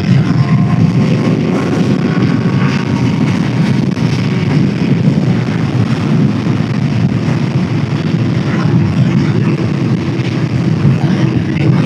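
Wind rush and road noise of a Suzuki GSX-R600 riding at a steady speed, with its inline-four engine running underneath and no revving.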